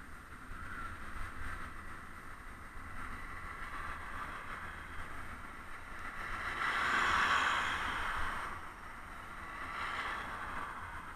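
Steady wind and road noise on a bicycle-mounted camera while riding. A car passes close by and swells louder a little over halfway through.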